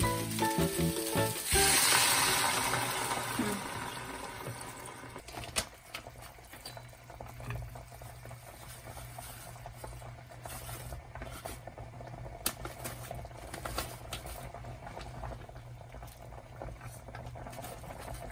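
Water poured into a hot frying pan of fried onions and eggs hisses loudly about a second and a half in, then dies away over a few seconds. The pan then simmers quietly while a spatula stirs in curry powder, with a few sharp clicks against the pan.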